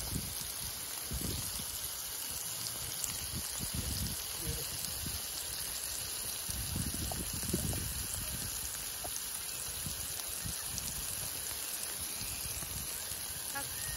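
Raw beef burger patties sizzling on a hot, oiled stainless-steel flat-top griddle as they are laid down one after another with metal tongs. Irregular low rumbles of wind on the microphone run underneath.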